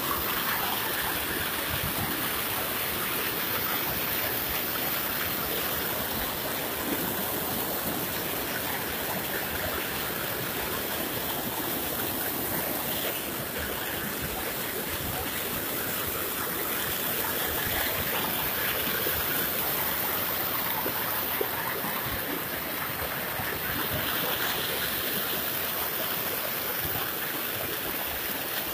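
Muddy floodwater rushing and churning past a bank, a steady noise of fast-flowing water.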